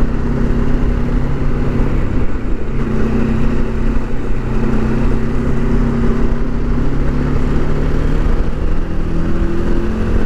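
Motorcycle engine running steadily as the bike is ridden along a road, with wind and road noise on the handlebar-mounted camera. The engine note breaks briefly a little after two seconds in, then settles back into a steady pull.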